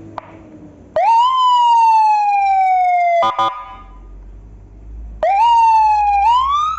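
Senken 40-watt electronic siren module sounding through its speaker while it is tested. A click comes just after the start, then a tone leaps up and slides slowly down for about two seconds and ends in a short stuttering blip. After a pause it sweeps again twice, rising and falling, near the end.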